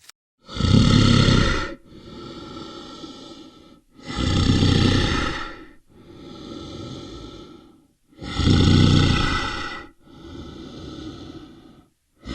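An animal calling three times, each loud call of a little over a second followed by a quieter, longer drawn-out call, in an even rhythm about every four seconds.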